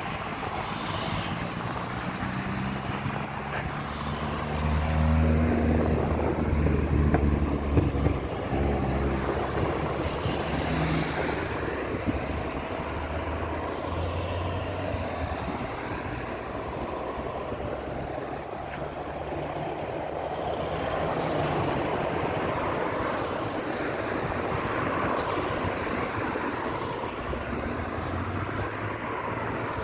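Road traffic passing steadily, with a low engine sound growing louder and nearer about five to eight seconds in.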